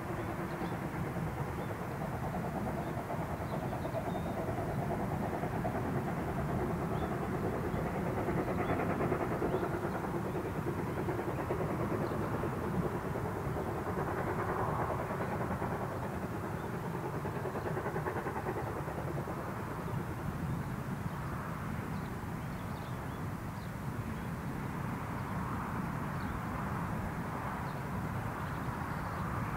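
Distant steam locomotive working hard, its exhaust chuffing steadily as it pulls its train.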